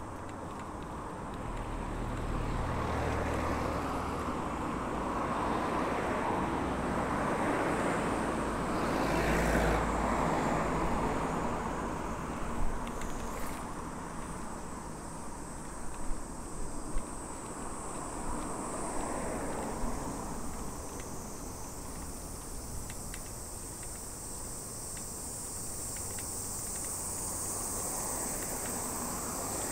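Road traffic noise with a car passing, loudest about nine or ten seconds in, followed by a few sharp clicks. In the second half a steady high insect drone grows louder.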